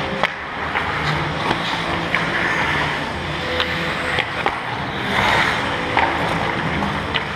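Ice hockey skates scraping and carving on the ice in front of the net, with scattered sharp clacks of sticks and puck on the ice. About five seconds in comes a louder scraping hiss as skates spray ice near the goal.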